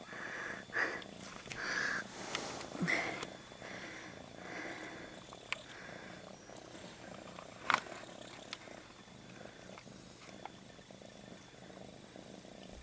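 Mother cat purring just after giving birth, in soft, evenly repeating pulses over the first few seconds, then more faintly. A single sharp click sounds about eight seconds in.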